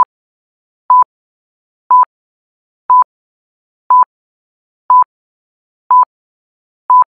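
Eight short electronic beeps, one each second, all on the same pitch, with dead silence between them.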